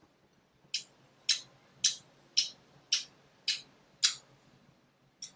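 A person chewing a gooseberry close to the microphone: a short, sharp chewing sound about twice a second, eight in all, with a brief pause near the end.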